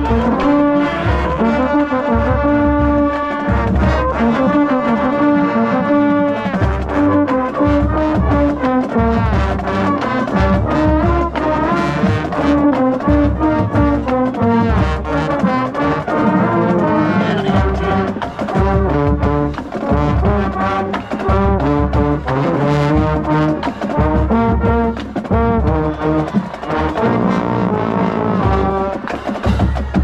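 Marching band brass section playing a trombone fanfare, heard close up from among the baritone horns: loud brass chords over pulsing low notes.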